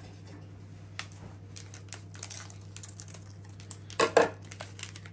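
Light clicks and rustles of handling, then a short, loud crinkling burst about four seconds in as a plastic spice sachet is cut open with a blade. A steady low hum runs underneath.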